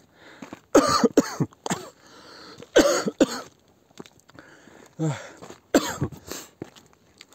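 A person coughing in quick clusters of two or three, about four times over, close to the microphone, with quieter breathing between the fits.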